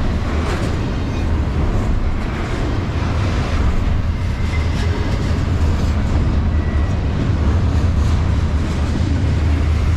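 Double-stack intermodal freight train rolling past slowly at restricted speed: a steady low rumble of the container well cars' wheels on the rails.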